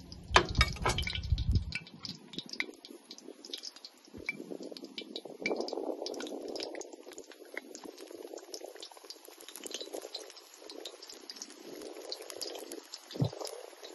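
Sliced zucchini going into hot oil in a wok, sizzling and crackling steadily from about four seconds in. Before that there are a few sharp metal clinks and a low rumble, and there is a single knock near the end.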